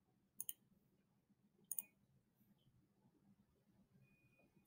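Two computer mouse clicks, each a quick press-and-release double tick, about half a second and just under two seconds in, against near silence.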